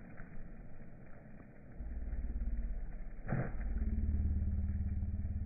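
Atom 35 impact rain gun sprinkler running, with one sharp knock of its swinging impact arm about three seconds in over the steady rush of its water jet. From about two seconds in, a low engine drone joins and grows louder.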